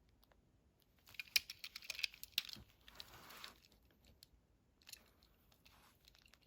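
Faint clicks and crackling of Hot Wheels plastic blister packaging as the carded die-cast cars are handled, busiest about one to three seconds in.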